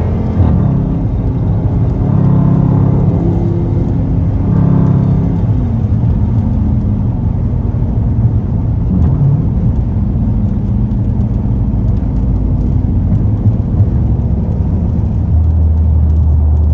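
Car engine revving and accelerating, rising in pitch a few times in the first five seconds and then running steadily with a deep rumble.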